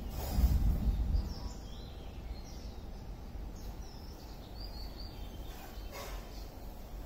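Small birds chirping with short high notes scattered throughout, over a steady outdoor background. A low rumble on the microphone in the first second or so is the loudest sound, and a soft tap comes about six seconds in.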